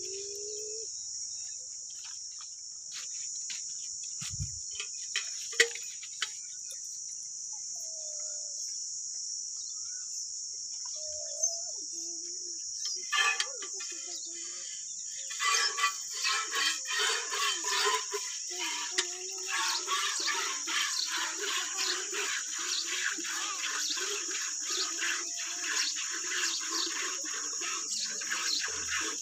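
Hand-milking a Kankrej cow: streams of milk squirting into a steel pot in a steady rhythm of about two squirts a second, starting about halfway through. A steady high hiss runs underneath throughout.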